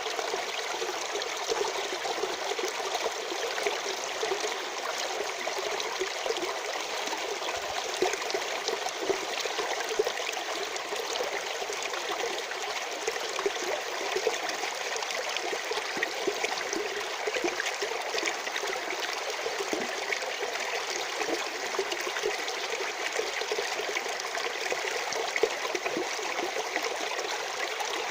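Natural stream running and trickling steadily, with a few brief louder splashes.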